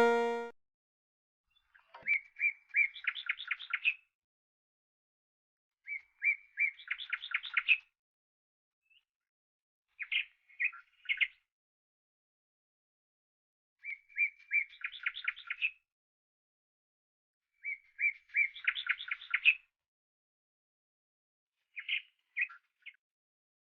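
Purple-rumped sunbird calling: six short bursts of rapid, high twittering chirps, about one every four seconds, with silence between.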